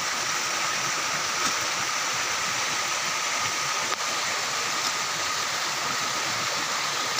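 Steady rushing of flowing stream water, with a faint steady high tone above it.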